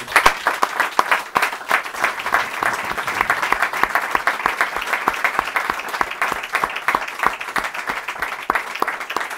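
Audience applauding, starting abruptly as a talk ends and carrying on steadily, easing slightly toward the end.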